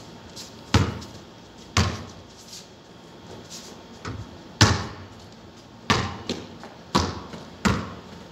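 Basketball being shot and bounced: the ball hits the backboard and rim and bounces on the concrete court. There are about six sharp bangs at uneven intervals, each with a short ringing tail, and the loudest comes a little past halfway.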